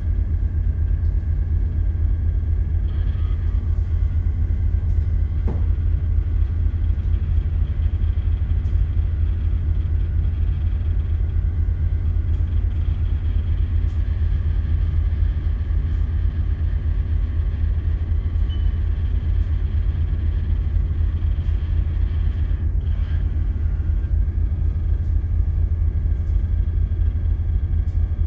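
Steady low rumble of the ship's engine and machinery on the bridge, with a fine, even pulsing and a faint steady hum of equipment above it.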